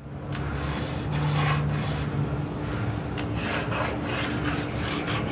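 Wood being sanded: a steady, scratchy rubbing over a low steady hum, starting abruptly.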